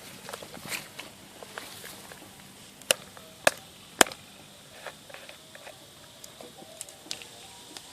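Three sharp knocks about half a second apart, among scattered lighter clicks and rustles.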